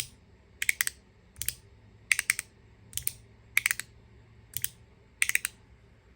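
Magnetic haptic fidget slider being snapped back and forth: sharp clicks of its magnets snapping the sliding parts together, about one every three-quarters of a second, some strokes giving a double or triple click. Its loudest pops reach into the 90s dB at ear distance.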